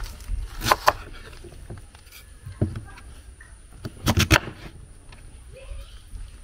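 Sharp knocks and clatters in two clusters, one about a second in and a louder one about four seconds in, with a few lighter knocks between, over a low background rumble.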